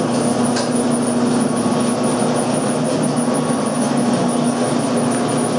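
Electric meat grinder motor running steadily with an even hum and a faint high whine, while ground meat is pushed through the stuffing tube into a sausage casing.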